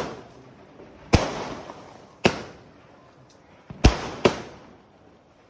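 A 120-shot aerial firework cake firing. It gives five sharp bangs, roughly one a second with two close together near the end, and each bang trails off in a fading rumble.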